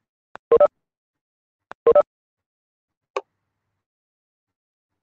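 Computer notification chime: a short two-note electronic tone, heard twice about a second and a half apart, each with a faint tick just before it. A single short click follows about three seconds in.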